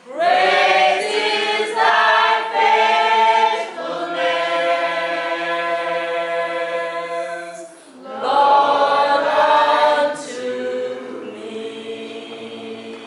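A group of voices singing a hymn together, with long held notes. The singing breaks off briefly about eight seconds in, then a last phrase follows and trails off softer.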